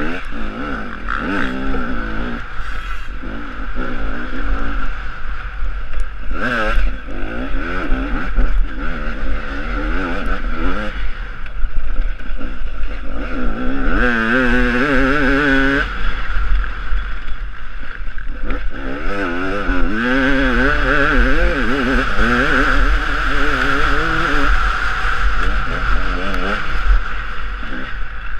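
Husaberg TE 300 two-stroke enduro motorcycle engine revving up and down again and again under changing throttle, heard from the rider's helmet camera over a steady low rumble.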